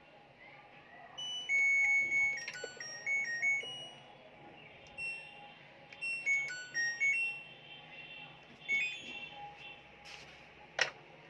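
The piezo buzzer on an LG top-load washing machine control board plays its short electronic chime melody of stepped beeps twice as buttons are pressed, followed by a few single button beeps. A sharp click comes near the end.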